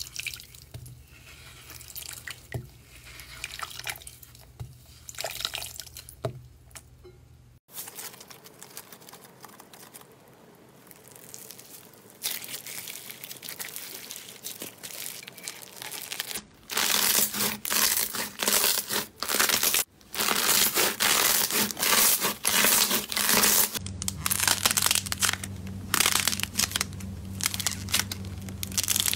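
Slime being squeezed, pressed and pulled apart by hand, with wet squishing and crackling. Over roughly the last dozen seconds it turns into dense, loud crackling, with a low steady hum underneath near the start and end.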